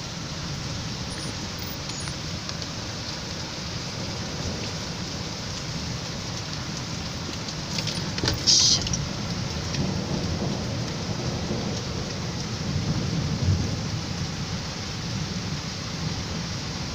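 Heavy rain falling steadily in a thunderstorm, with a brief sharp crackle about halfway through followed by low rumbling thunder.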